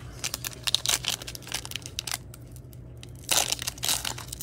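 Mylar wrapper of a Panini Mosaic trading-card pack crinkling and crackling as hands pull and tear it open, with a louder stretch of crackling about three seconds in. The wrapper is not opening cleanly.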